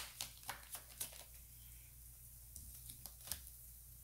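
Tarot deck being handled in the hands: a quick run of light card clicks, about four a second, through the first second, then a few scattered clicks, over a faint steady low hum.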